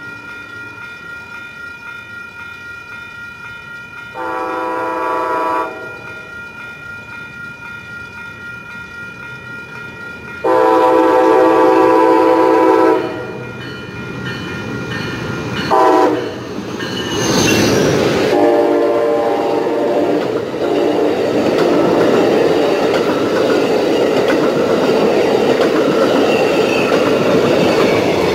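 Amtrak Pacific Surfliner train, a Siemens SC-44 Charger and an F40 cab control unit, approaching and sounding its horn in the long, long, short, long grade-crossing pattern. Steady grade-crossing bells ring under the horn. From about two-thirds of the way in, the train passes close by at speed with a loud rushing rumble of engine and wheels.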